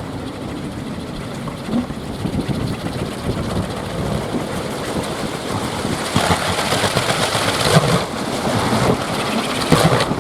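Teak-wood kolecer (Sundanese wind propellers on poles) spinning in a strong wind, making a continuous engine-like drone. It grows louder, with more wind rush, about six seconds in as a gust picks up.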